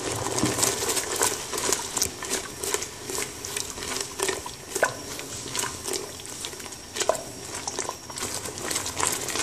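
Red silicone spatula stirring and scraping thick tamarind sauce around a saucepan as it bubbles on the heat: a busy run of soft clicks, scrapes and plops. The sauce has cooked down to a thick paste and is nearly done.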